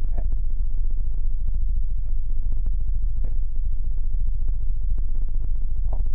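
Steady low hum with a dense scatter of faint clicks, and a few faint voice fragments, about a second in and near the end.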